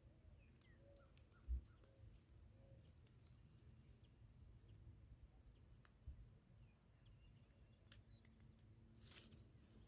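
Faint, high-pitched bird chirps repeating every half second or so over near silence, with one soft low thump about a second and a half in.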